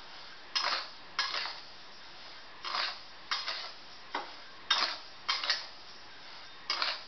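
Flat metal spatula scraping and turning dry rice grains in a kadhai while the rice is dry-roasted: short scraping, rustling strokes, irregularly one to two a second.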